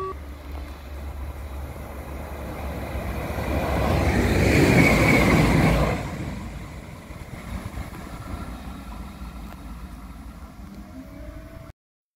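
A vehicle passing close by: a rushing noise that builds over a couple of seconds, is loudest for about two seconds, then drops away abruptly about halfway through, over a steady low hum.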